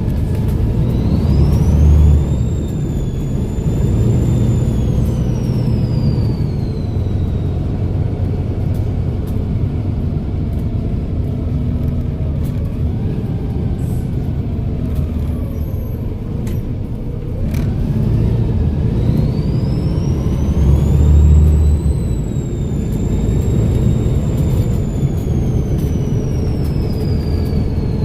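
Volvo B7RLE bus's turbocharged six-cylinder diesel under way over a steady low engine rumble. Its turbo whistle rises to a high pitch, holds, then falls away, twice: about a second in, and again after about nineteen seconds.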